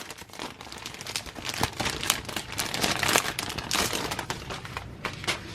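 Packaging being handled and opened by hand, crinkling and rustling in a dense run of irregular crackles.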